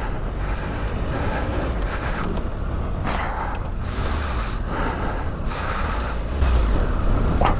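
Triumph Tiger 1200 adventure motorcycle's three-cylinder engine running as the bike rides over loose gravel, with rushing wind-and-tyre noise on the helmet microphone. The engine gets louder about six and a half seconds in.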